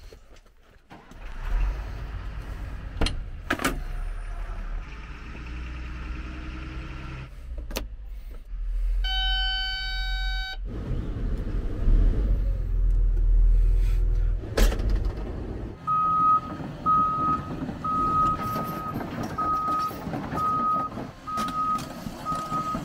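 Cat 330 excavator's diesel engine running, with a few sharp clicks and a steady warning buzzer for about two seconds near the middle. Over the last several seconds the travel alarm beeps about once a second as the machine tracks.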